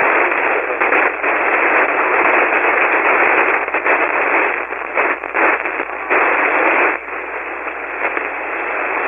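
Shortwave radio receiver on 40-metre single-sideband giving out loud band static: a dense hiss in the narrow voice passband that surges and sags from moment to moment. It is the really bad static that is covering the other station's signal.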